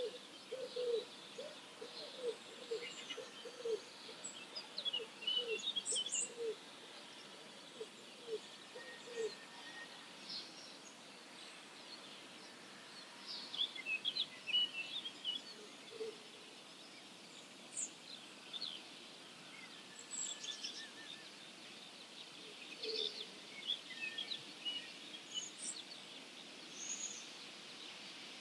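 Early-morning chorus of wild songbirds: scattered high chirps and whistles from several birds over a steady faint outdoor hiss. Through the first third a bird gives a run of low, evenly repeated calls, about two a second, and gives one twice more later.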